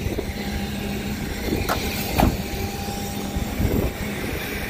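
Steady outdoor background rumble, with two sharp knocks about half a second apart near the middle and a duller thud later.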